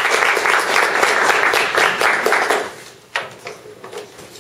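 Audience applauding, dying away about two and a half seconds in, followed by a few scattered knocks and clicks.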